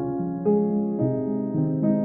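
Background music on piano or electric piano: sustained chords changing about once or twice a second.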